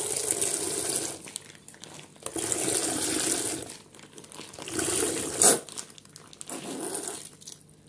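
Kefir being whisked in a bowl: four separate bursts of sloshing and stirring, each about a second long, with a sharp tap a little past the middle.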